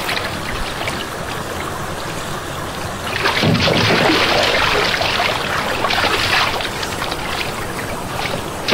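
Shallow water splashing and trickling as a hand moves in it, coming in uneven surges, the loudest about three seconds in.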